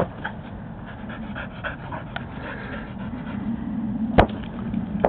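A dog panting hard during play, with two sharp thumps, one at the very start and one about four seconds in.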